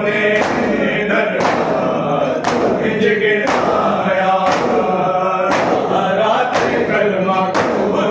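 A group of men chanting a noha in unison, with sharp hand slaps of chest-beating (matam) landing together about once a second.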